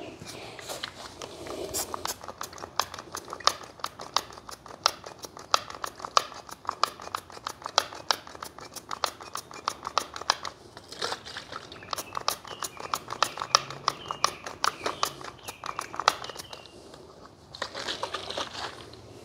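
Hand trigger sprayer on a bottle, squeezed over and over to squirt phosphoric acid rust treatment onto a bare steel frame: a quick spurt with each pull, about three a second, with short pauses.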